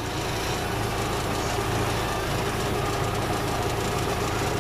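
A tractor's diesel engine running steadily under way, pulling a rotary hay rake.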